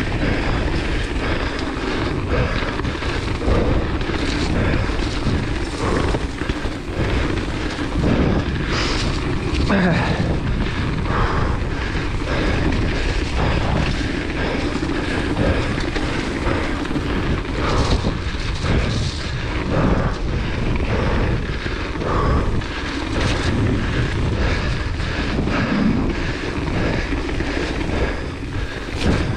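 Hardtail mountain bike descending a wet dirt trail at speed: a steady rush of wind on the microphone and tyres rolling on dirt, broken by frequent short knocks and rattles as the bike hits bumps.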